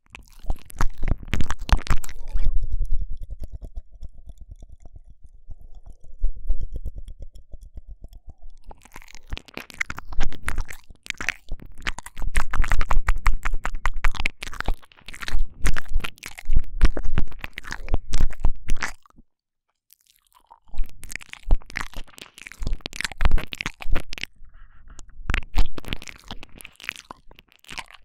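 Close, wet mouth sounds of 'ear eating' ASMR made right at a binaural microphone: dense tongue clicks, lip smacks and moist crackles. A few seconds in there is a fast, even rattle of clicks, tongue shaking, and about two-thirds through the sounds stop briefly before resuming.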